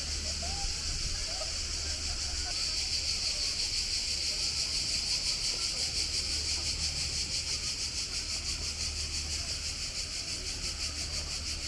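Motor boat under way: a steady low engine drone under a steady high hiss, gently pulsing in loudness, with faint voices near the start.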